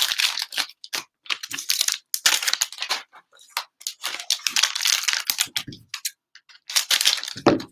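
Cellophane-wrapped trading card packs crinkling as they are handled and stacked, in a run of short crackly rustles with brief pauses.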